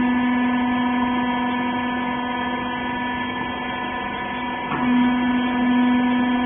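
A hydraulic clothes baler's motor and pump running with a steady hum. There is a short knock nearly five seconds in, after which the hum gets a little louder.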